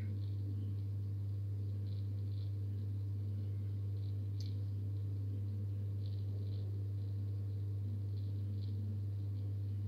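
Aquarium pump humming steadily, with faint water bubbling and a few soft ticks.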